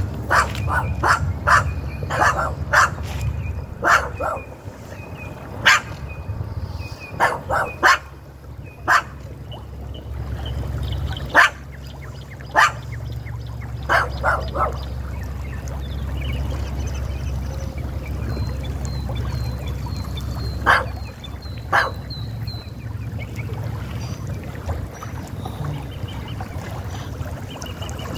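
A dog barking in scattered bouts of one to several short barks, with longer gaps as it goes on, then falling quiet for the last several seconds. A steady low rumble runs underneath.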